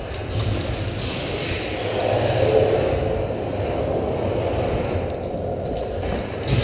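Muffled rustling and rumbling from a body-worn action camera rubbing and jostling against its wearer's gear as he moves. It gets a little louder from about two seconds in.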